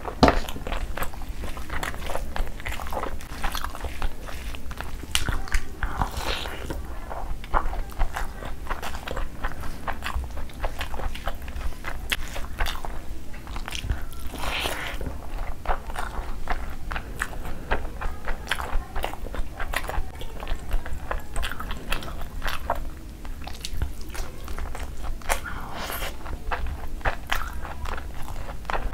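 Close-miked chewing and mouth sounds of a person eating curry-soaked rice and chicken by hand: a steady run of wet smacks and small clicks, with a few louder bites.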